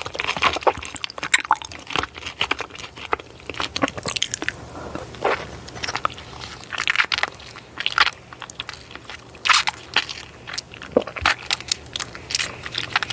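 Close-miked eating sounds: irregular crunchy bites and chewing, many short crackles in quick succession.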